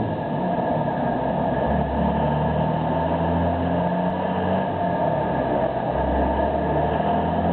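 Cummins diesel engine running under load on a chassis dyno, a steady drone whose pitch creeps slowly upward toward the end as the revs build.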